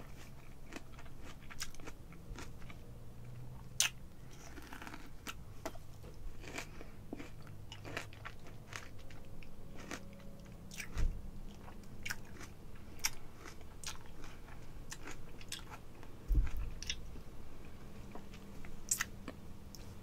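Close-miked chewing of ripe apricot: many soft wet mouth clicks and smacks. Two low thumps come about halfway through and again near three-quarters of the way.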